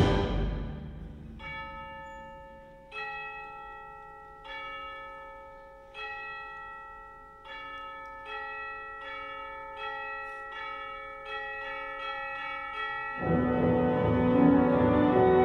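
Tubular bells (orchestral chimes) tolling like church bells: single ringing strokes about a second and a half apart, then coming faster, each note left to ring into the next. The loud tail of a full wind-band chord dies away at the start, and the band comes back in about thirteen seconds in.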